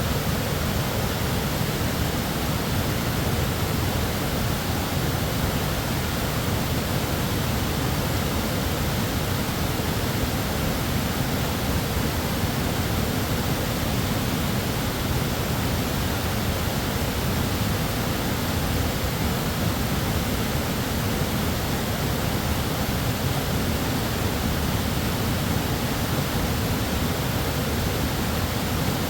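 West Fork Foss River waterfall: a steady rush of water pouring over rock, with a deep low rumble under the hiss.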